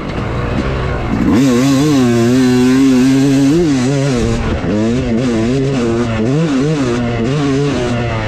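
Yamaha YZ250 two-stroke dirt bike engine under throttle while ridden. Its pitch climbs sharply about a second in and holds high, then rises and falls with repeated throttle changes.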